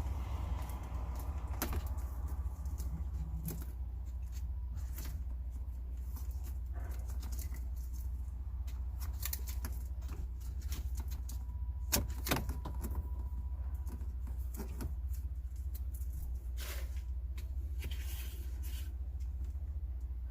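Scattered clicks and knocks of parts and tools being handled during an air conditioner installation, over a steady low hum.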